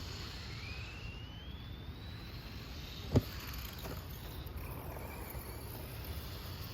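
Electric RC monster truck motor whining and rising in pitch as the truck speeds up. About three seconds in comes a single sharp, loud knock, followed by a weaker one shortly after.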